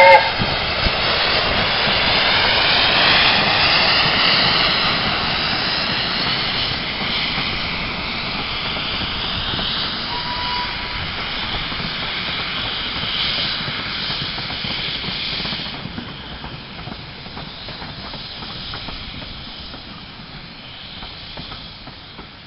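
Britannia-class steam locomotive running past at speed with a train of coaches: a steady rush of steam hiss and train noise. The last of its chime whistle cuts off right at the start, and the sound fades about two-thirds of the way through as the train moves away.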